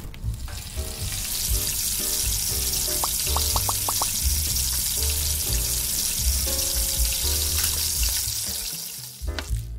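Frying sizzle, a steady hiss of oil in a pan that fades out near the end, over background music with a steady low beat.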